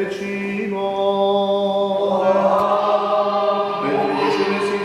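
Eastern Orthodox liturgical chant: voices singing a slow hymn, one low note held steadily beneath a melody that moves to a new pitch about every two seconds.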